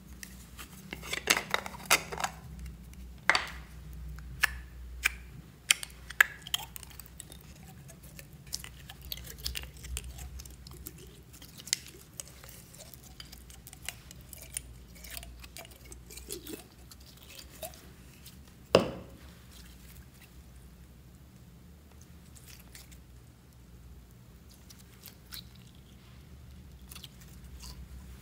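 A hard plastic slime container being handled and opened, giving sharp clicks and knocks, then the soft crackling and squishing of thick slime pulled out of the jar by hand. There is one loud knock about two-thirds of the way through.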